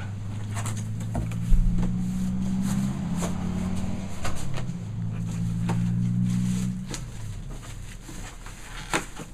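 Cardboard box flaps and plastic wrapping rustling and clicking as a boxed compact refrigerator is unpacked, with a thump about a second and a half in. A low hum runs underneath and stops about seven seconds in.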